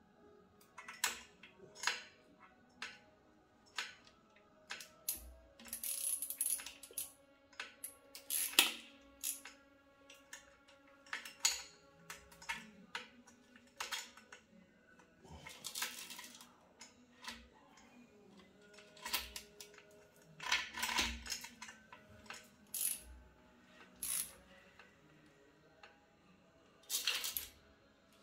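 Metal tools and engine parts clinking and knocking together during fitting of pistons and connecting rods to a BMW S54 engine: irregular sharp clinks, some with a short ringing after them.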